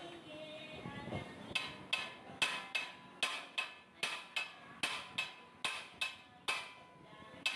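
Hammer blows on metal, about two or three a second and evenly paced, each with a short metallic ring. They start about a second and a half in.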